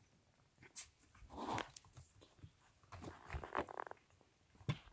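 Cats growling during a rough play-fight, with short knocks and scuffles from paws and bodies. The louder growl comes around three to four seconds in.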